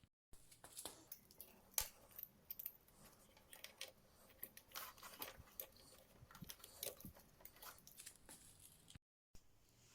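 Faint, scattered clicks, taps and clinks of small parts and hand tools being handled during scooter engine reassembly. The sound cuts out completely twice, just after the start and about nine seconds in.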